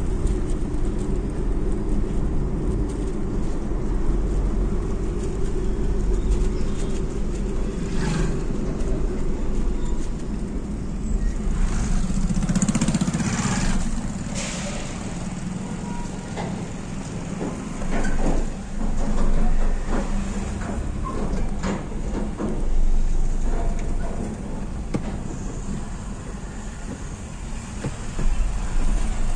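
Steady engine and road noise heard inside a Maruti Swift Dzire's cabin while it drives along a road. There are scattered knocks and a couple of louder swells past the midpoint.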